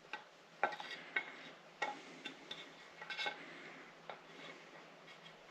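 Irregular light clicks and taps, about a dozen over a few seconds, as the engine's valve cover and its new gasket are handled on the bench.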